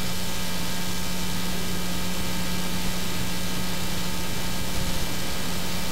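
Steady tape hiss with a low mains-type hum and faint high steady whines from an old VHS camcorder recording, with no room sound or voices.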